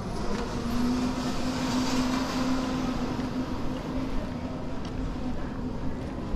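Steady mechanical hum with one constant low tone, over outdoor street noise that swells slightly and eases again.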